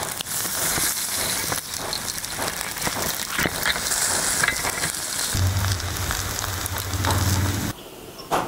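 Pork intestines sizzling and crackling on a wire grill over charcoal. A low hum joins about five seconds in, and both cut off abruptly near the end.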